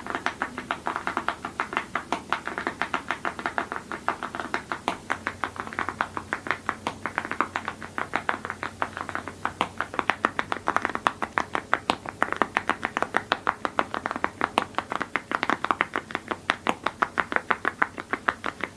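Continuous fast typing on a mechanical keyboard with metal keycaps: a dense, even run of crisp keystrokes, several a second, without pauses.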